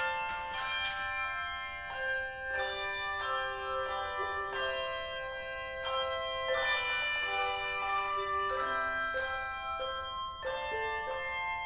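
A handbell choir ringing a hymn-tune arrangement: many bells struck in quick succession, each tone ringing on and overlapping the next, with low bells sounding under the higher ones.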